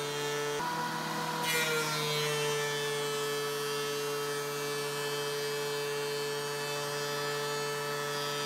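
DeWalt benchtop thickness planer with a three-knife cutterhead, running and planing a group of thin wood strips fed through together. Its motor whine drops in pitch about half a second in as it takes the load. A burst of cutting noise follows about a second and a half in. It then runs steadily under load.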